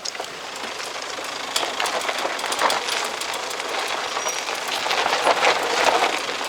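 Off-road vehicle rolling down a rough, stony mountain track: tyres crunching over gravel and stones, with a dense clatter of small rattles and knocks that grows gradually louder.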